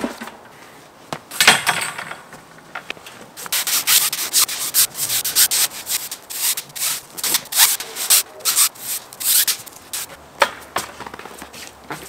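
A broom sweeping wet, sticky snow off a trampoline mat in quick, repeated scraping strokes, most of them bunched in the middle stretch.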